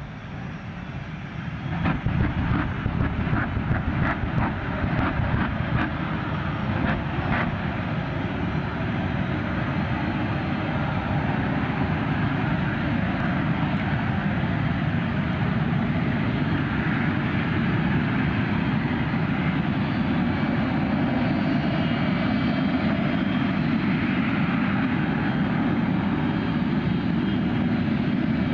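Jet funny cars' turbojet engines running steadily at the starting line, with sharp crackles during the first several seconds.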